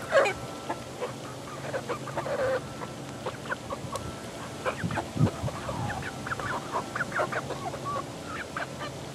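A mixed flock of 11-week-old chickens (ISA Browns, Barred Rocks, Easter Eggers, Speckled Sussex and Australorps) clucking and peeping, with many short calls overlapping. One louder call comes right at the start.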